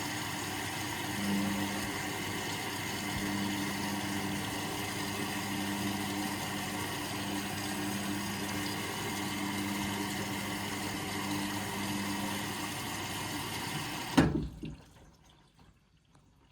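Indesit washing machine filling: water hisses in steadily through the inlet valve, with a low humming tone. About fourteen seconds in the valve shuts off with a click, and the sound drops to near silence.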